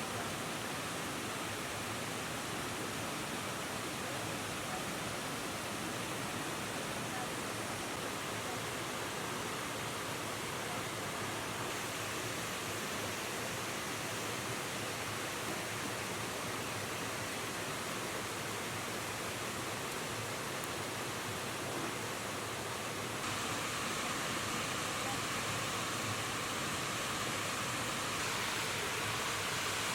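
River water rushing steadily, an even hiss-like flow that gets a little louder about two-thirds of the way through.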